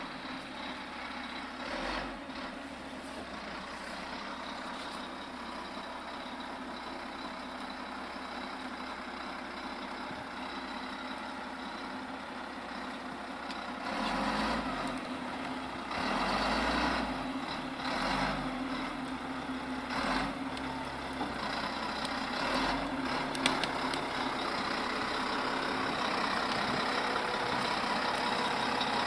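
Volvo A35E articulated dump truck's diesel engine running as the hauler drives, growing gradually louder, with several louder, rougher stretches about halfway through.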